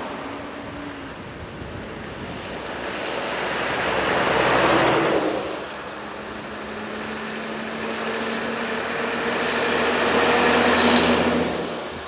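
Road vehicles, including a truck, driving past: the tyre and engine noise swells to a peak about five seconds in and eases off. It swells again with a steady engine hum, peaking near the end before fading away.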